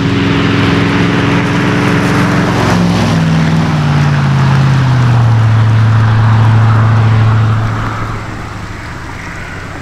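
Ford F100 pickup's 4.6-litre V8 driving past: the engine note holds steady, drops in pitch in a few steps just after the truck passes, then fades as the truck pulls away down the road.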